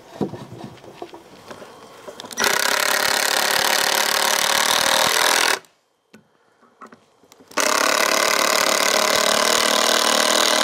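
Cordless drill driving screws into pine lumber to tack a picnic-table leg temporarily in place, in two long steady runs of about three and four seconds. Light knocks of boards being handled come before the first run.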